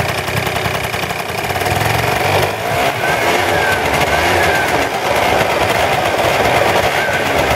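Zipp Quantum scooter engine running through its exhaust, steady, growing slightly louder about two seconds in.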